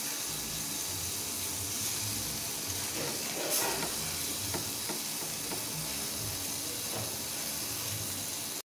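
Beef satay skewers sizzling steadily on a hot ridged grill pan, with a brief louder rustle about three and a half seconds in as a spatula presses the meat. The sound cuts out for a moment near the end.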